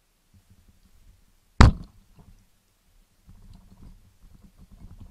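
Speargun fired underwater: one sharp, loud crack about a second and a half in. Low, muffled rumbling and small knocks follow as the gun and shooting line move in the water.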